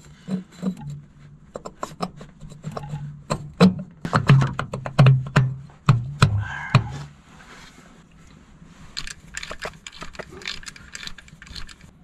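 Metal parts clinking, knocking and scraping as a steel flanged housing is fitted and worked onto a Caterpillar bulldozer's rear housing, with a low steady hum under the first half that stops about seven seconds in.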